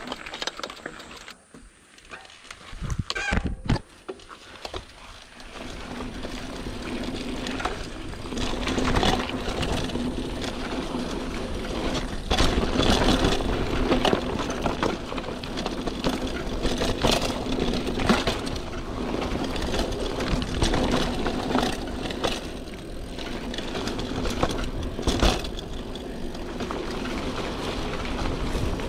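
Trek Marlin 7 hardtail mountain bike riding a dirt singletrack: knobby tyres rolling over dirt and roots, with frequent rattles and clatters from the bike over bumps. It is quieter for the first few seconds, with a brief squeal about three seconds in, then louder and busier from about six seconds on.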